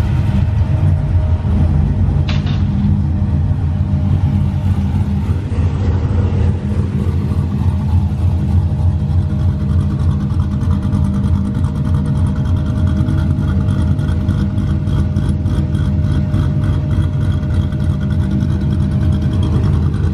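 Cammed Chevrolet C6 Corvette V8 idling with a steady low rumble from its exhaust, the sound of an aftermarket camshaft.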